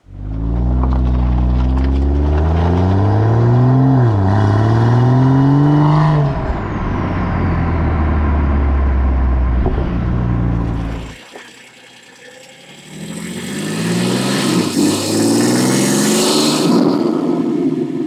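BMW M340i's turbocharged 3.0-litre straight-six, Stage 2 tuned and fitted with a DO88 carbon-fibre intake, accelerating hard: the engine note climbs, dips with an upshift about four seconds in and climbs again, then runs steady. After a sudden drop around eleven seconds, a second pull starts about two seconds later with a loud rushing hiss over the engine note, easing off near the end.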